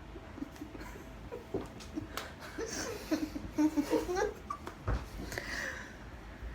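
Giggling laughter in short bursts, loudest around the middle.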